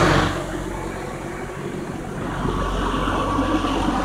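Low-flying helicopter giving a steady engine-and-rotor drone that dips early and then slowly grows louder.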